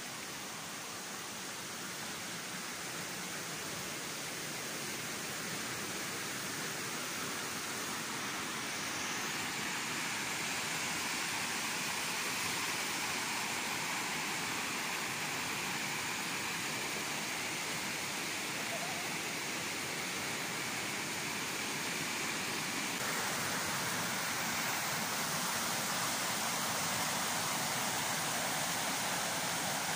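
Rushing whitewater of a swollen river's rapids: a steady noise that grows gradually louder.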